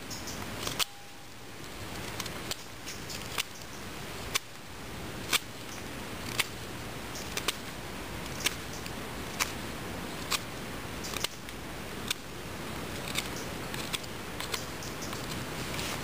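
A hand tool working material: sharp clicks about once a second over a scraping noise that swells between them.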